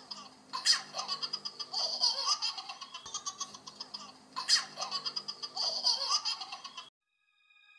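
High-pitched laughter sound effect: quick, pulsing peals of laughing. The same laugh stretch plays twice over and cuts off about seven seconds in.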